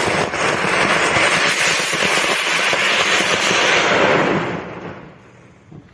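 A firework fizzing and crackling steadily for about four seconds, then fading away.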